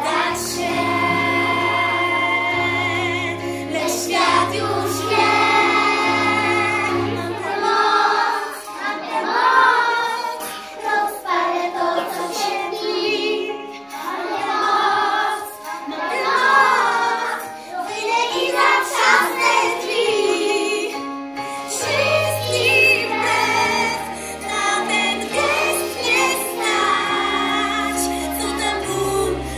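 A group of young children singing a song together over a recorded backing track, which has a bass line that drops out for a stretch in the middle.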